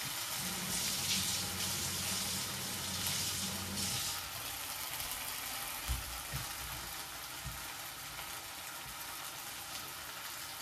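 Sliced onions frying in hot oil in a steel kadai on a gas stove, a steady sizzle, the onions now golden brown. A low hum sits under it for the first few seconds, and there is a soft knock about six seconds in.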